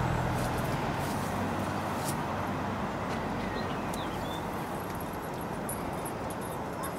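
Steady hiss of outdoor background noise, with a few faint short high chirps about halfway through and near the end.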